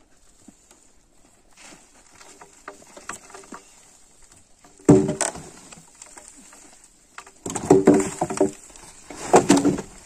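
Old nailed wooden timbers creaking and scraping as they are pried loose and shifted, with three loud creaking bursts: about five seconds in, around seven and a half to eight and a half seconds, and just before ten seconds.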